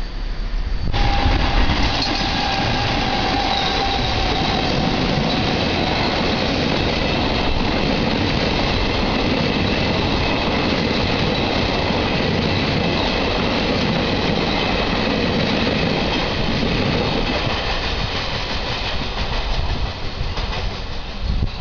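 Regional passenger train passing close by on an electrified line, with a steady loud rumble of wheels on rails. A high whine over the first few seconds falls slightly in pitch. The rumble eases off near the end as the last coaches go by.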